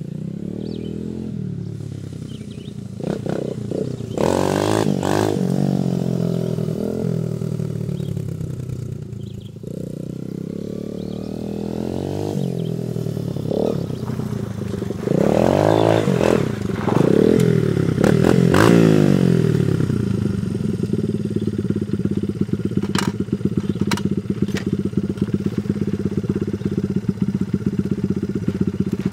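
Small dirt bike's engine revving as the bike is ridden past, its pitch rising and falling, loudest in the middle stretch. It then settles into a steady idle for the last several seconds, with a couple of sharp clicks.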